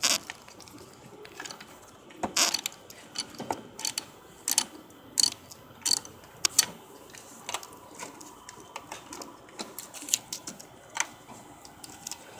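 Ratchet wrench with a 10 mm socket clicking in irregular strokes as it loosens a battery terminal clamp nut, disconnecting the car battery.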